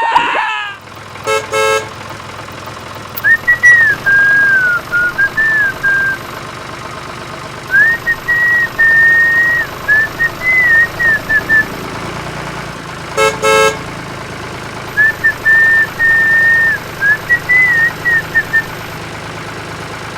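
A steady engine hum, as from a small tractor motor. A high warbling whistle comes over it in three drawn-out phrases, and two short rapid-fire beeping toots come about a second in and again near two-thirds of the way.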